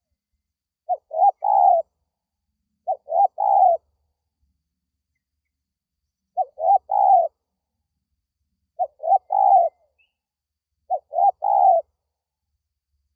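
Spotted dove cooing: five phrases, each two short notes followed by a longer one, repeated every two to three seconds.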